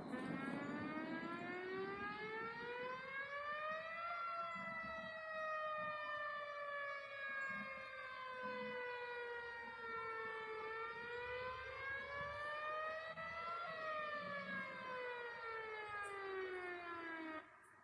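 Homemade outdoor warning siren sounding a wail. Its pitch rises for about four seconds, falls slowly, rises again and falls, then cuts off suddenly near the end.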